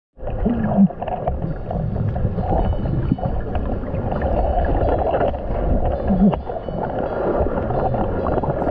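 Muffled underwater noise as heard by a camera held in the sea at night: a steady low rumble of moving water and bubbles. Two short wavering tones cut through it, one just under a second in and one about six seconds in.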